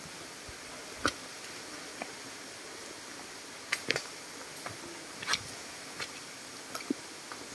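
Footsteps on a mountain trail: scattered, irregular crunches and clicks over a steady background hiss.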